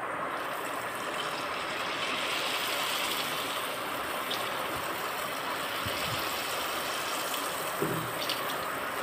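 Hot oil sizzling steadily as spoonfuls of jackfruit batter are dropped in and deep-fry, with a couple of faint ticks from the spoon.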